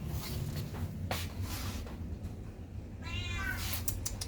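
A cat meows once, a short call about three seconds in. A few sharp clicks or taps come earlier, over a steady low hum.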